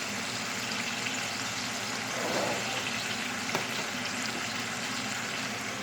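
Tandoori-marinated chicken frying in oil in a cast iron pot: a steady sizzle.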